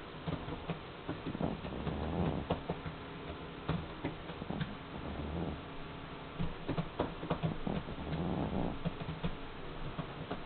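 A sleeping cat snoring: a low snore on each slow breath, about every three seconds, with scattered small clicks between.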